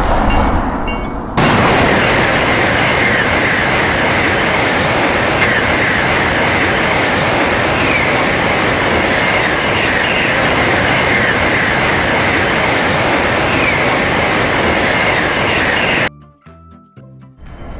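Electric train passing over a level crossing: a steady loud rumble and clatter of wheels on rail that starts suddenly about a second in and cuts off abruptly near the end. Before the train arrives, the crossing bell is ringing briefly at the very start.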